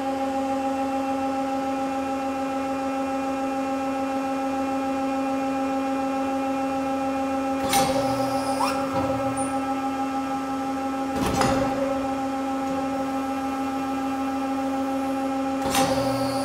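Eaton Leonard VB150 HS CNC tube bender running a bend cycle: a steady machine hum throughout, with three sharp clacks of the clamps and tooling moving, about halfway through, a few seconds later and near the end.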